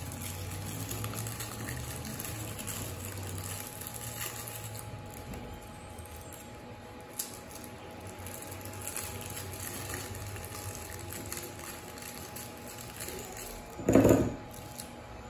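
Rockets candies dropped by hand into a tall drinking glass, with faint scattered clicks as they land on the pile. About 14 s in, a short, much louder knock and rattle of glass and candies as a hand takes hold of the glass.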